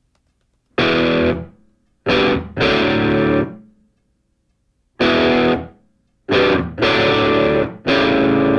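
Intro music: distorted electric guitar striking loud chords one after another, each ringing out briefly, with short silent gaps between them.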